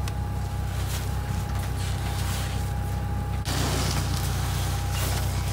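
Forklift engine idling steadily, a low even hum, with a thin steady whine above it.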